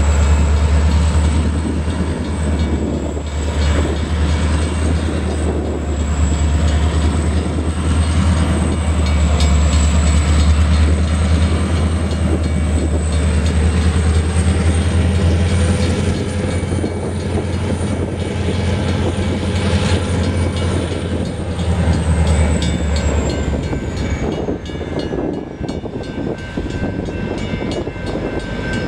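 Two diesel-electric locomotives, LSRC 1169 and 2003, running as they move past with a steady deep engine rumble and a thin high whine. The rumble fades about three-quarters of the way through, and the whine falls in pitch near the end.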